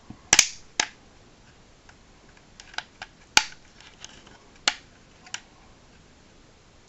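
Hard plastic clicks and snaps from a Jazwares Micro Galaxy Squadron Inquisitor Transport Scythe toy ship as its parts are moved by hand: about seven separate sharp clicks, the loudest about a third of a second in and again about three and a half seconds in.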